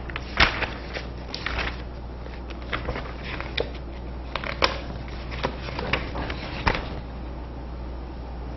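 Sheets of paper rustling and crinkling as they are handled and leafed through, in a string of short sharp bursts that stop about seven seconds in, leaving a steady low room hum.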